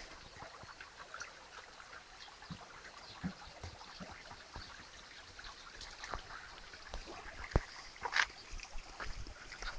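Footsteps and phone handling noise while walking a dirt path, as irregular small crunches and clicks. About eight seconds in there is a louder rustle of leaves brushing past the phone.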